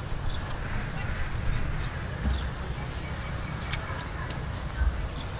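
Small birds chirping in quick, repeated short calls, over a steady low rumble with a couple of soft thumps.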